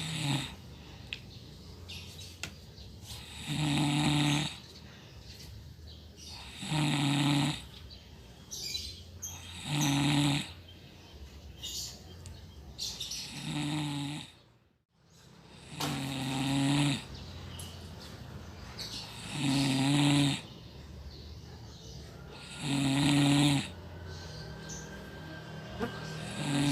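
A person snoring in a steady rhythm: a loud, pitched snore about every three seconds, each lasting about a second, with quieter breathing between.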